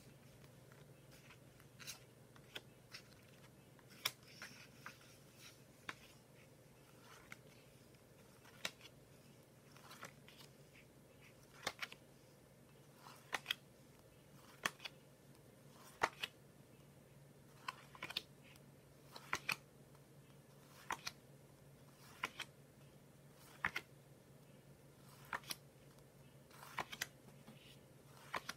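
Stiff paper flashcards being flipped and set down one after another, a short sharp card snap or tap about every second and a half, sometimes two close together, over a faint low hum.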